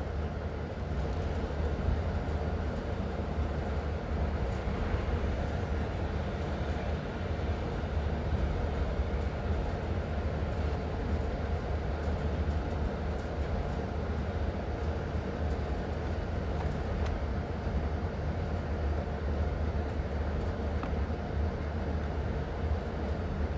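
Steady low mechanical rumble, with a few faint clicks scattered through it.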